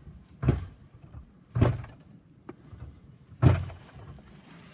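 Three dull thumps, the second about a second after the first and the third about two seconds later.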